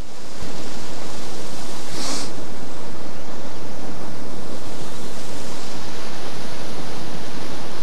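Wind buffeting the camera microphone: a loud, steady, even rushing noise, with a brief higher hiss about two seconds in.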